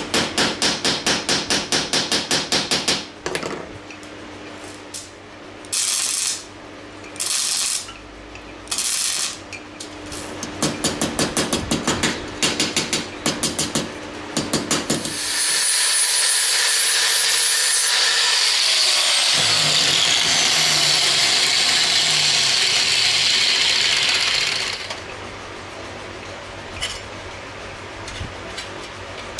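Hand metalwork on 1 mm steel plate: fast, even strokes of a hand tool on the metal, about seven a second, in runs of a few seconds with short separate strokes between. About halfway through, a power tool runs loudly and steadily for about nine seconds and then stops, leaving faint clicks of handling.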